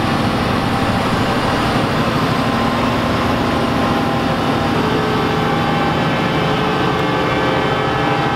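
Large Fendt tractor's diesel engine running steadily under load as it pulls a tractor-pulling sled, with higher whining tones joining in about five seconds in.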